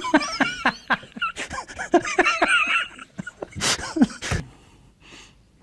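A man laughing: a run of short chuckles, then a couple of breathy bursts, stopping about four and a half seconds in.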